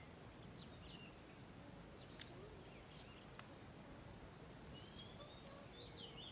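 Faint small birds chirping in short calls scattered through, over a low steady outdoor background noise, with a couple of brief sharp ticks in the middle.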